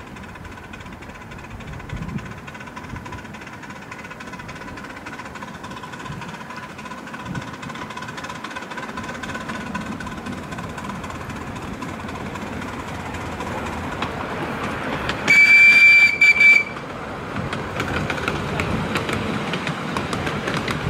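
Miniature steam locomotive hauling a passenger train, getting louder as it approaches. About fifteen seconds in its steam whistle sounds, one long blast then a short one. After that the wheels click over the rail joints as the train passes close by.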